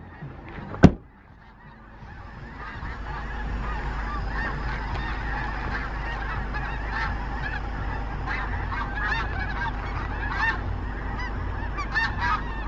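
A large flock of snow geese honking, a dense chorus of overlapping calls that swells in over the first few seconds and then holds steady. A single sharp knock sounds about a second in.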